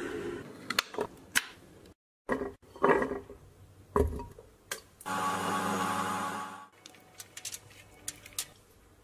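Kitchen prep sounds: a few sharp clicks and knocks, food dropped into a blender jar with a knock about four seconds in, then an electric blender running steadily for about a second and a half; light clicks near the end.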